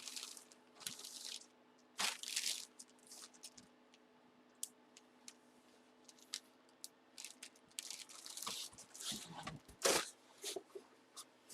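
Irregular rustling, crinkling and crackling of plastic and card packaging being handled during a trading-card box break, over a faint steady hum.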